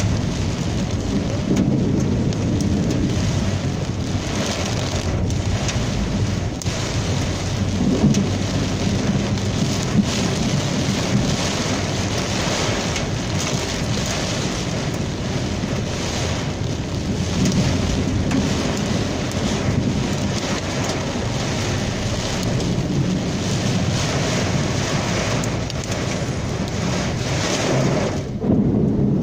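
Heavy downpour with hail in a thunderstorm: a dense, loud beating of rain and hailstones on surfaces, with thunder rumbling underneath.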